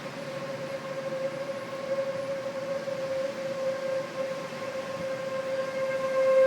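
Outdoor tornado warning sirens sounding one steady, held tone that grows louder and fuller toward the end.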